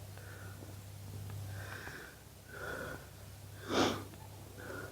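Metal detector sounding several short mid-pitched beeps as it is swept over the ground, with a short, louder breathy noise like a sniff just before the last beep.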